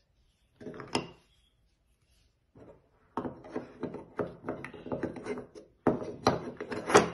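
Pieces of a carved wooden box knocking and clacking against each other and the wooden tabletop as they are pulled apart and fitted back together. A short burst of knocks comes about half a second in, then near-continuous clatter from about three seconds in, loudest near the end.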